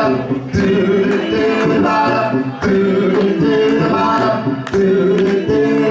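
Male vocal group singing close harmony a cappella, doo-wop style, holding sustained chords in phrases of about two seconds with short breaks between them.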